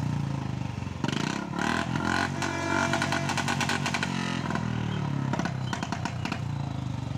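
Royal Enfield Bullet's single-cylinder engine running, then revved up and back down about a second in, with a rapid crackle of exhaust pops that keeps on for a few seconds as the revs fall. This is the firecracker-like popping that a changed, non-stock silencer gives.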